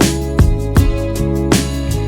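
Background music with a steady beat: guitar-led instrumental.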